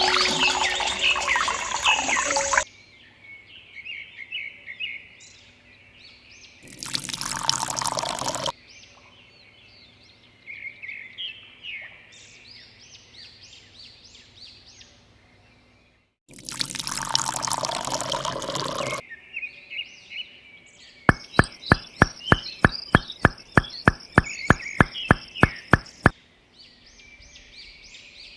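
Birds chirping throughout, with two bursts of water pouring, each about two seconds long. Near the end comes a quick run of sharp clicks, about four a second, for some five seconds.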